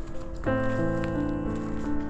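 Background music of held, layered chords, with a new chord coming in about half a second in.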